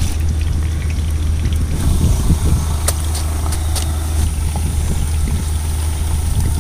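Boondi frying in a pan of hot oil, the sizzle and trickle sitting under a steady low mechanical hum, with a few light clicks.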